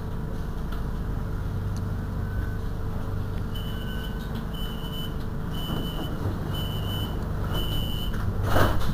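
Bombardier Flexity Outlook tram standing at a stop with its equipment humming steadily. About three seconds in, its door warning sounds five high beeps, roughly one a second, typical of the signal before the doors close. A short loud rush of noise follows near the end.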